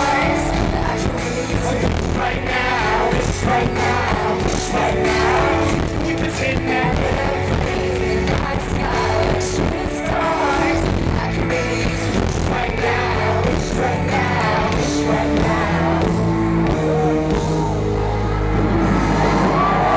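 Live hip-hop music played loudly through a concert PA, with a steady beat and sung vocals, heard from within the audience. Near the end the crowd begins whooping and cheering.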